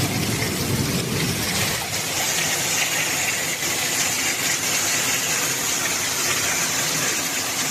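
Heavy storm downpour: a steady, even rushing hiss of precipitation pouring down.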